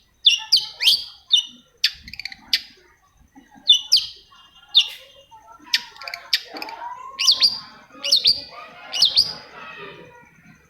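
Long-tailed shrike (cendet) singing: loud, sharp chirps and quick clusters of notes, repeated with short pauses, with some softer, lower warbling in the second half.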